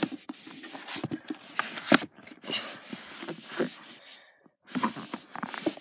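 Handling noise of paperback books being slid along and pulled from a shelf: irregular scrapes, rustles and light knocks, with one sharper knock about two seconds in.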